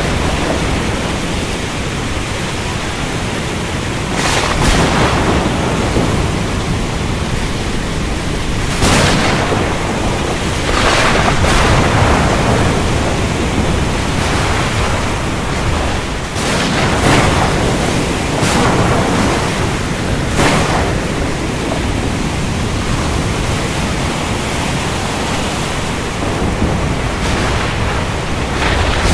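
Thunderstorm: a steady rush of heavy rain and a low rumble, broken about six times by sharp cracks of thunder.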